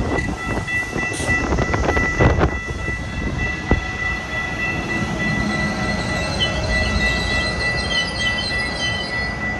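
Amtrak passenger train rolling past: coaches, then a Siemens Charger diesel locomotive. There is a run of wheel clicks over rail joints in the first few seconds, a steady high-pitched wheel squeal throughout, and the locomotive's low engine note coming in about halfway, with a wavering squeal on top near the end.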